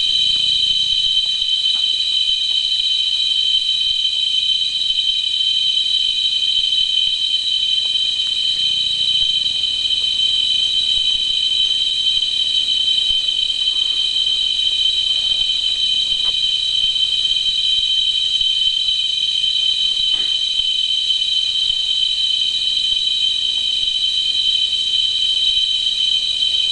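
Loud chorus of rainforest cicadas: an unbroken, steady shrill drone held at a few high pitches.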